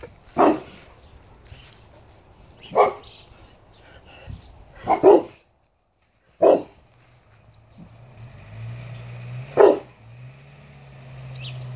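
Boerboel barking: single loud barks every couple of seconds, one of them doubled. A low steady rumble comes in during the last few seconds.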